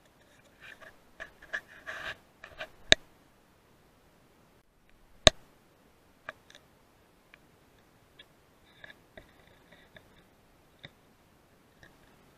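Scattered faint clicks and two sharp single clicks, about three seconds and five seconds in: handling noise picked up by the microphone of a rifle-mounted night-vision scope.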